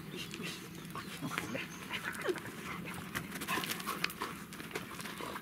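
Dogs panting and sniffing at close range, with many small rustles and scuffs.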